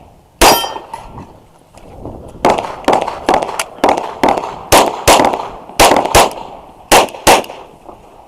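Rapid 9mm pistol fire from a Glock 34 during a timed stage: one shot, then after a pause of about two seconds a string of about a dozen shots, fired about three a second in pairs and short groups.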